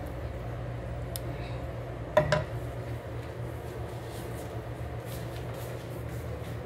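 Wooden slotted spatula stirring squid in a nonstick frying pan, with a couple of sharp knocks against the pan about two seconds in, over a steady low hum.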